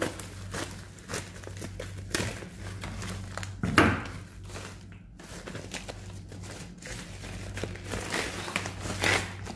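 Plastic mailer bag crinkling and rustling as it is cut open with scissors and handled, with irregular crackles and a louder rustle about four seconds in.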